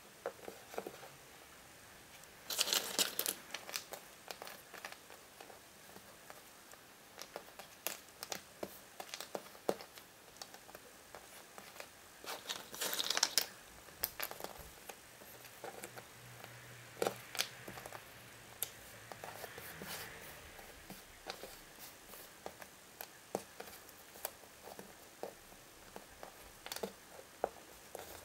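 Foil wrapper of a Kinder Surprise chocolate egg crinkling in two short bursts, a few seconds in and again about halfway through. Between them come scattered light clicks of cardboard jigsaw pieces being picked up and set down on a wooden floor.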